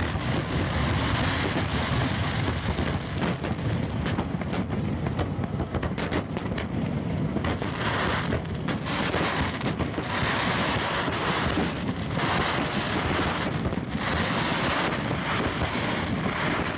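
Aerial fireworks bursting in quick succession: a constant barrage of bangs and crackling over a low rumble, with wind noise on the microphone.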